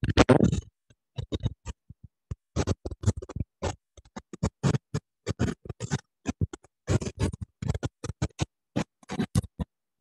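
Broken-up audio over a video call: music-like sound chopped into dozens of short bursts that cut in and out, with silent gaps between them.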